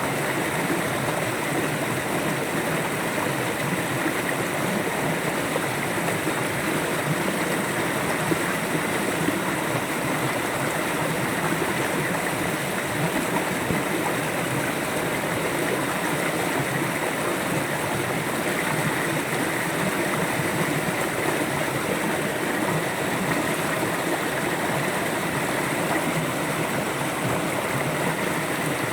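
River water flowing steadily over rocks, a continuous rushing and babbling.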